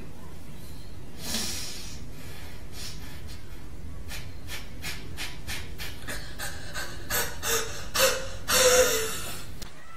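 Kapalbhati yoga breathing: a deep breath in through the nose, then a steady run of short, forceful exhalations through the nose, two to three a second, with a longer breath near the end.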